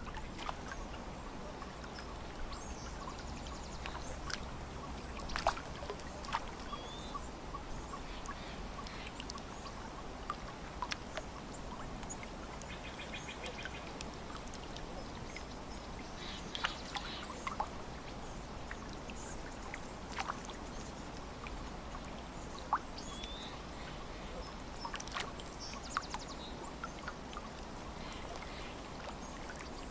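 Lake water lapping and splashing against the shore, with frequent small sharp splashes, and a few short bird calls now and then.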